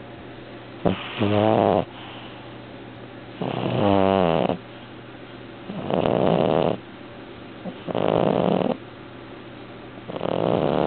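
Devon Rex cat snoring loudly in its sleep: five snores about two seconds apart, some with a buzzing pitch and others breathier.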